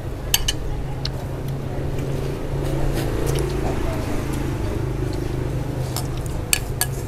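Spoons and chopsticks clinking against ceramic soup bowls: a few sharp clinks near the start and two near the end. Under them runs a steady low hum with indistinct background chatter.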